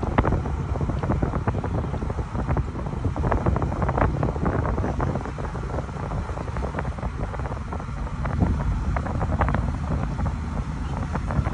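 Wind buffeting the microphone in gusts, over a low, steady rumble from a small catamaran's engines as it pulls away below, churning propwash.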